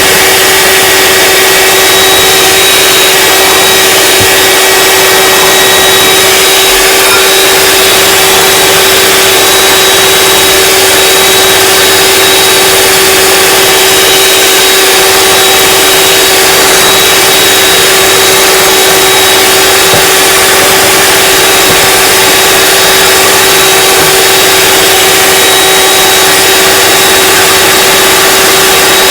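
Electric mixer running at a steady speed, one constant hum, whipping macaron meringue of egg whites and sugar that has not yet beaten up to stiff peaks.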